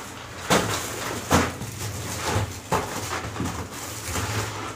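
Cardboard boxes of firecrackers being handled and pulled out of a large cardboard carton: a few sharp knocks and rustles.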